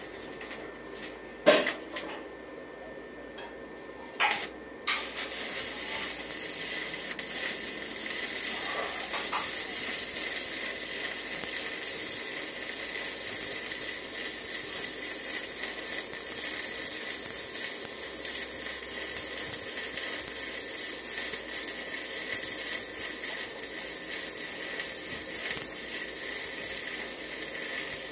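Stick (arc) welding on a steel pipe: the electrode arc gives a steady crackling sizzle, starting about five seconds in. A couple of sharp knocks come just before it.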